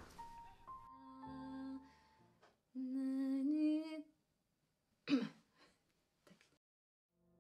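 A woman humming a few held notes of a tune, one of them slightly wavering. About five seconds in comes a short, sharp sound that falls in pitch.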